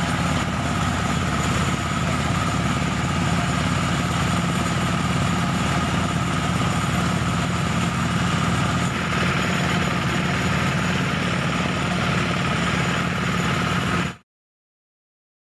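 Small engine-driven rice thresher running steadily as bundles of rice stalks are fed in, a continuous engine hum that cuts off suddenly near the end.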